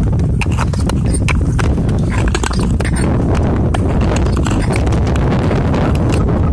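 Ice skates striding on clear black lake ice: sharp, irregular clicks and scrapes of the blades over a steady low rumble.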